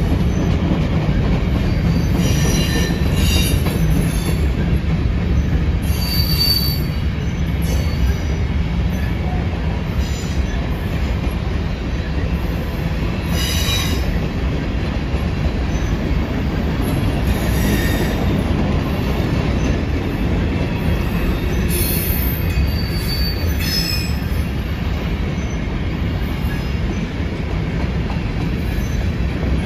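Slow-moving freight train of covered hoppers and boxcars rolling past: a steady low rumble of steel wheels on rail, with short high wheel squeals breaking in every few seconds.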